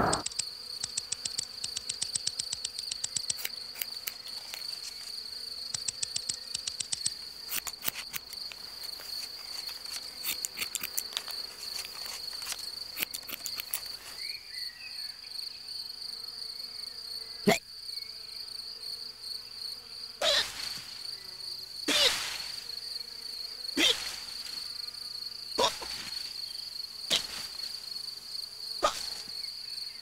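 A steady, high cricket trill runs throughout, with rapid insect clicking in the first half. From about halfway through, a cartoon grasshopper hiccups: a string of sharp, loud hics, one every one and a half to two seconds.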